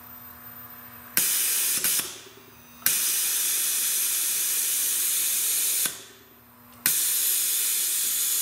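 Compressed air hissing loudly out of a Rolair JC10 air compressor in abrupt on-off bursts, with a faint low hum in the short gaps between them. The tank pressure is falling: the repaired on-off circuit is not holding air.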